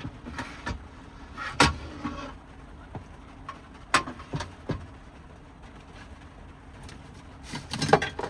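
Sharp knocks and clicks of things being handled inside a small van, the loudest about one and a half seconds in and a quick cluster near the end, over a steady hiss of heavy rain on the vehicle.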